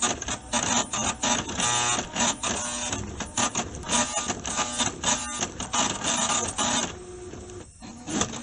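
Epson M188B receipt printer printing: a rapid, continuous chatter from the print mechanism that gets quieter about a second before the end.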